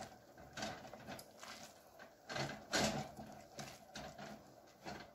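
Spatula stirring pansit canton noodles cooking in broth in a stainless steel pot, with irregular scrapes and soft knocks against the pot's side.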